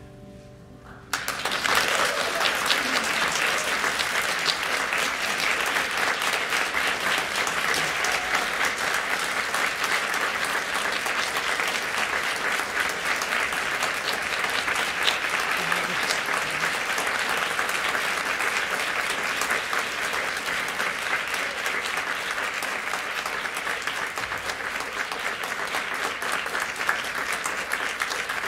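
Hall audience applauding: the clapping starts suddenly about a second in, just as the ensemble's last held notes fade, and keeps up steadily.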